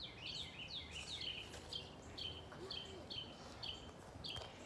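A bird calling over and over: a short high chirp sliding downward, about twice a second. In the first second and a half a second run of lower chirps overlaps it.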